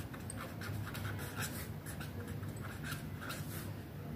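Pen writing on ruled notebook paper: a run of short, irregular scratching strokes as letters are written, over a low steady hum.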